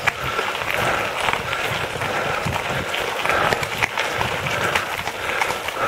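Tyres of a recumbent bike rolling over a loose gravel road, a steady crunching crackle full of small clicks.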